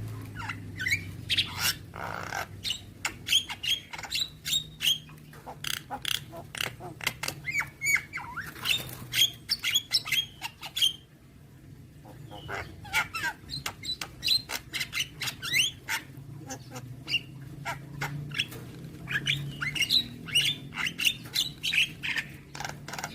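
Javan myna (jalak kebo) singing a rapid stream of varied whistles, chirps and harsh notes, with a short pause about halfway through.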